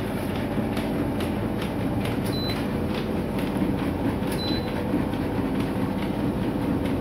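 Motorized treadmill running steadily under a walking husky, the belt and the dog's paws giving an even clatter about twice a second over the motor's hum. Two short high beeps sound near the middle.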